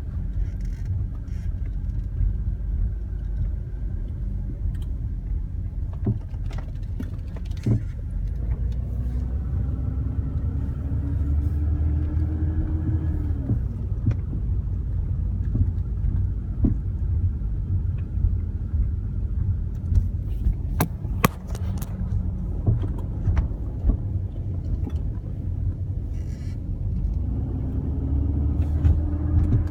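BMW E34 on the move: steady road and engine rumble, with the engine note climbing under acceleration and dropping away twice. Sharp single clunks come at irregular moments, in clusters, the sudden clunking the car has developed.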